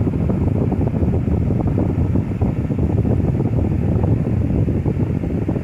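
Lasko 12-inch table fan head running on medium without oscillation, its airflow buffeting the microphone as a steady low rushing rumble.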